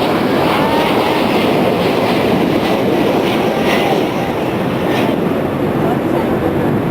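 Loud, steady roar of a passing airplane, with a few faint clicks over it.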